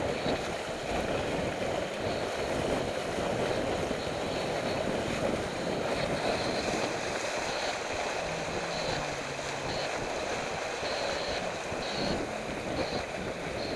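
Water rushing and splashing along the hull of a heeled sailboat under sail, with wind buffeting the microphone.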